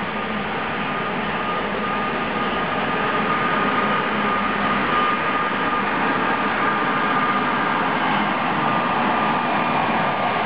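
Passenger coaches of an express train hauled by a MÁV V63 electric locomotive rolling past as the train pulls out. The wheels on the rails make a steady rushing rumble that grows a little louder, and a thin steady high whine runs through it.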